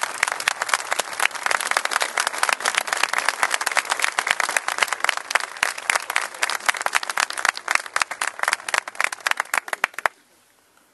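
A crowd applauding with dense, fast hand clapping that cuts off suddenly near the end.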